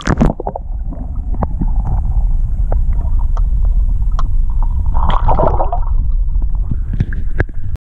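A splash as the camera goes under the water, then the muffled low rumble of water against the submerged camera housing, with small knocks and a gurgle of bubbles about five seconds in. It cuts off suddenly near the end.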